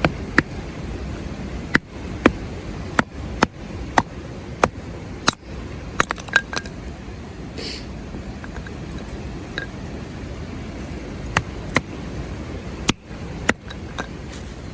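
A series of sharp, irregular knocks and clicks, a dozen or more, some in quick succession, over a steady rushing background.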